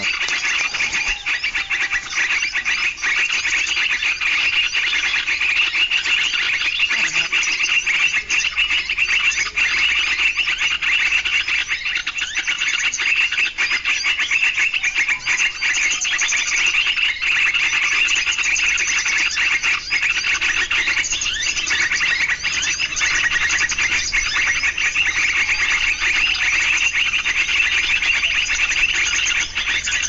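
Recorded bird calls played nonstop from a small speaker as a lure for trapping birds with lime: steady, high-pitched, many rapid notes.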